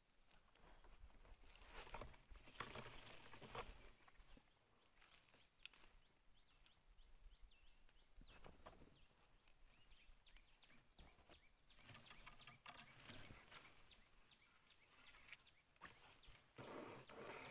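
Faint, irregular rustling and crackling of leaves and twigs, as from someone moving through branches picking star anise fruit, with a few short high chirps.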